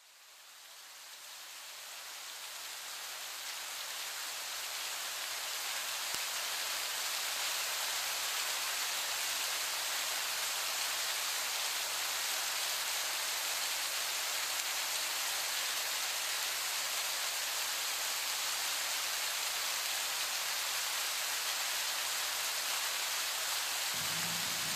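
A steady, even rain-like hiss fades in from silence over the first few seconds and then holds level. A low hum comes in near the end.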